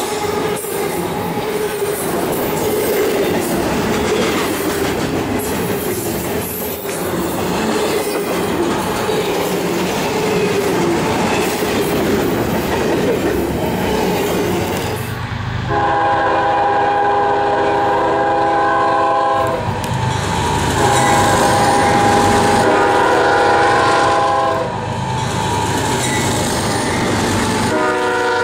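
Double-stack intermodal freight train rolling past, a steady rumble with wheels clicking over rail joints. About halfway through a diesel locomotive horn sounds two long chorded blasts of about four seconds each, and a third begins right at the end.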